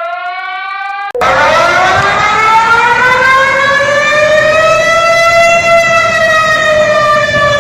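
Warning siren of the civil-defence kind, played from an emergency alert recording: a rising wail is cut off about a second in by a louder siren wail with a rushing noise under it, whose pitch climbs slowly and then starts to fall near the end.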